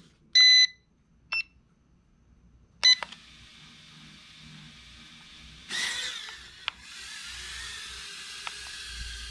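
Handheld drone remote beeping as it is switched on: a pitched beep about half a second in, a shorter higher one just after a second, and another near 3 seconds. About 6 seconds in, the micro quadcopter's motors spin up with a rising whine as it lifts off, then its small propellers run with a steady high buzzing hiss.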